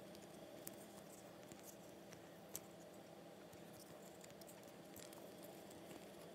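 Faint, scattered clicks and taps of fingers handling a small clear plastic candy mold, over a steady low room hum.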